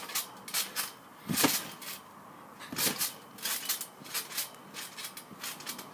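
Garden trampoline thudding and rattling as someone bounces on it: irregular knocks, the heaviest about one and a half seconds in and again near three seconds.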